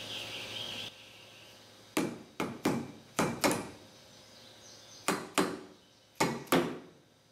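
An orange mallet tapping a machined high steer arm down onto the studs of a Dana 60 steering knuckle: about nine sharp taps, mostly in quick pairs, starting about two seconds in.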